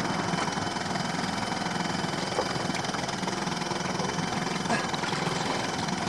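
Dinghy's engine idling steadily.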